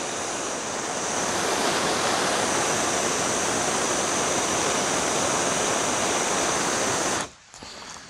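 Handheld gas torch on a yellow fuel cylinder burning with a steady hiss while its flame heats pruning-shear blades to sterilise them. It cuts off suddenly near the end as the torch is shut off.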